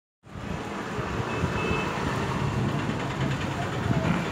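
Steady low background rumble that starts suddenly as the recording begins.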